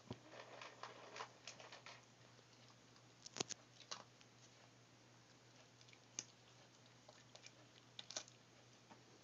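Near silence broken by faint scattered clicks and soft rustles from young chihuahua puppies squirming and mouthing on a fleece blanket: a quick run of them in the first two seconds, the sharpest click about three and a half seconds in, and a few more later.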